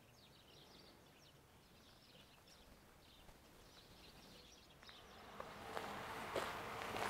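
Faint birds chirping in the background. About five seconds in, footsteps on a concrete floor begin, a step roughly every half second.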